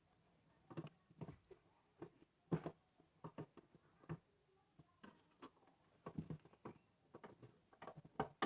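Hands handling the parts of a small electronic device under repair: a series of faint, irregular clicks and knocks.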